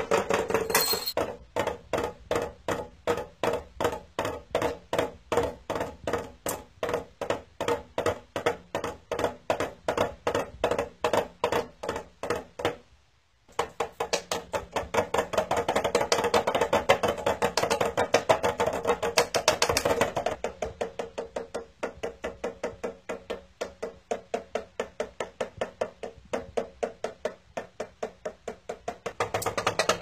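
A bird striking a drum in a fast, steady rhythm of about three knocks a second, with music. The sound cuts out briefly about 13 seconds in, then the knocks come denser and brighter for several seconds.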